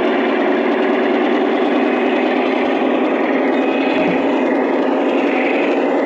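Diesel engine sound from the model GP9 locomotive's Phoenix sound card, played through its onboard speaker as the locomotive runs along the track. It is steady and unbroken.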